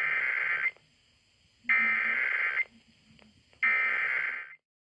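Emergency Alert System SAME header: three buzzy bursts of digital data tones, each about a second long, with a one-second pause between them.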